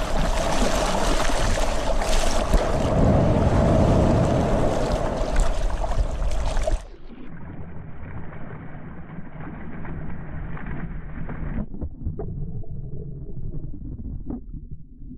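Ocean surf rushing and splashing around a camera held at the water's surface. About seven seconds in, the sound turns abruptly dull and muffled as the camera goes under the water, leaving a low watery rumble with a few soft knocks.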